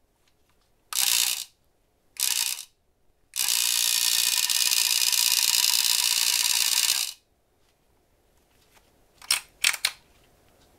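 The mechanism of a Taiyo Goriki T500 electric fishing reel clicking rapidly as it is worked by hand: two short half-second bursts, then a steady run of about four seconds, then a couple of single clicks near the end.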